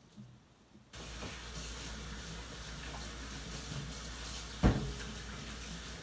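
Kitchen sink tap turned on about a second in, water running steadily into the sink as hands are washed under it. A single sharp knock sounds near the end.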